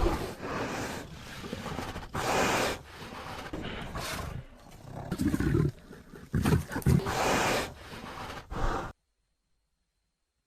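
Designed creature vocalisation for Daeodon, the giant prehistoric boar-like entelodont: a string of about eight rough roars and grunts in quick succession, some deep and growling, ending about nine seconds in.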